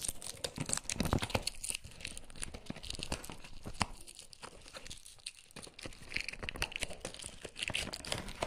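Hands opening a cardboard box and its paper sleeve: rustling and scraping of the packaging with many sharp clicks, easing off for a moment about halfway through.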